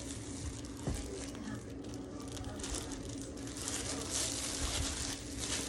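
Rustling and crinkling of packaging as flat silhouette goose decoys are unpacked and handled, with a single knock about a second in and a steady low hum underneath.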